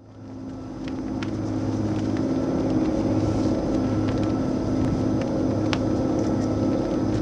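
Steady low machinery hum, with a few fixed tones, fading up over the first second or two. Scattered sharp ticks sound over it.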